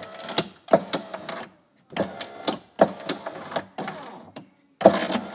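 Power window motor and cable-type window regulator inside a Land Rover Freelander door running in about six short bursts, grinding and clicking. The regulator is failing: its cable is shredding itself inside the door.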